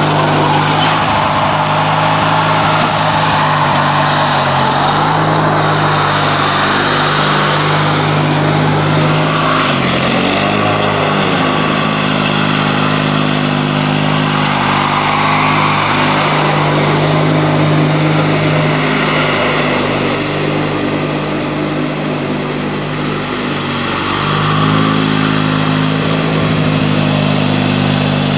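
Lawn tractor's Briggs & Stratton 16 hp opposed twin-cylinder engine running steadily as the tractor is driven, its engine note dipping briefly and recovering about ten seconds in.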